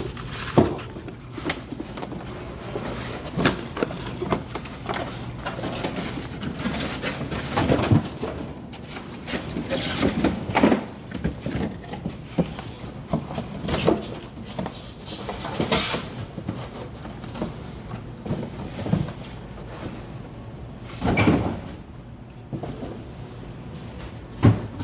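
Irregular knocks, thumps and rustling of cardboard boxes being handled and dropped.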